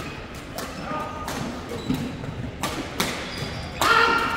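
Badminton rackets striking a shuttlecock in a rally, a sharp crack every half second to a second, ringing in a large sports hall. Near the end a loud, high squeal cuts in, the loudest sound here.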